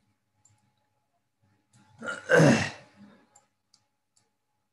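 One short, throaty vocal sound from a person about two seconds in, lasting about a second and as loud as the speech around it. Otherwise near quiet, with a few faint clicks.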